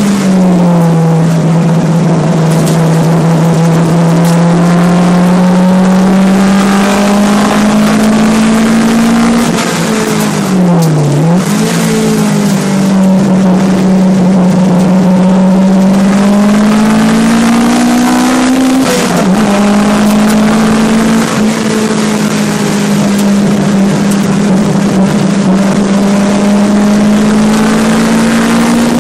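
Mazda MX-5's four-cylinder engine running hard under racing load, heard from inside the cabin. The revs climb slowly through each gear, drop at gear changes near the start and about two-thirds of the way through, and dip briefly before picking up again around the middle.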